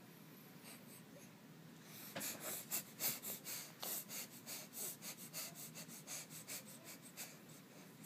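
A baby sniffling: a quick run of short sniffs through the nose, about four a second, starting about two seconds in and stopping shortly before the end.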